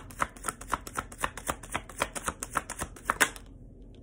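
A deck of tarot cards being shuffled by hand: a steady run of card slaps, about four a second, ending near the end with one louder slap.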